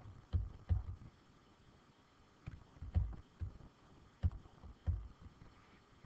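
Stylus writing numerals on a pen tablet: about eight dull, low thumps with light clicks, irregularly spaced, one for each pen stroke or tap.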